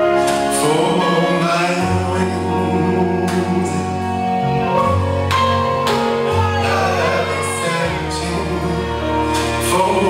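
A slow, mellow song with singing over sustained instrumental notes, played back for a dance class.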